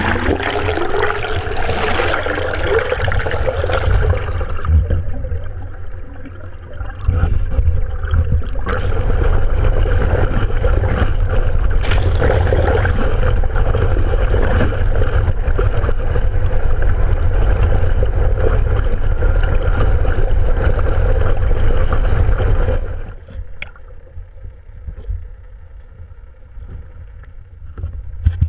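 Boat motor and rushing water heard through an underwater camera: a loud, steady low rumble with a faint steady hum, which drops off sharply about 23 seconds in to a much quieter hiss.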